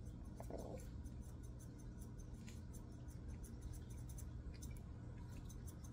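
Grooming scissors snipping through a mat in a Yorkie Biewer puppy's coat: a run of quick, light snips, faint and irregular.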